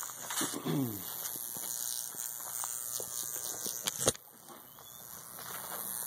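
High-voltage arc of a homemade Jacob's ladder buzzing and crackling between its two copper tubes as it climbs, with a sharp snap about four seconds in, after which it is briefly quieter before building back up.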